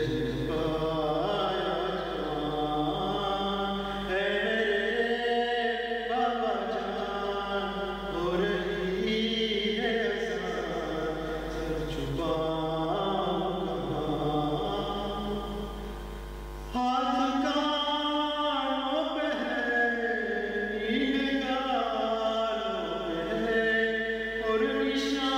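A man's solo voice chanting an Urdu marthiya (elegy) in a slow, melodic recitation with long held notes, briefly softening more than halfway through before coming back louder.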